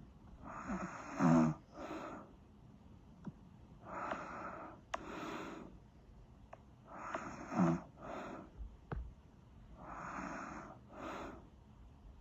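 A person snoring in slow, regular breaths about every three seconds, each a longer raspy breath followed by a shorter one, some with a low buzzing rattle.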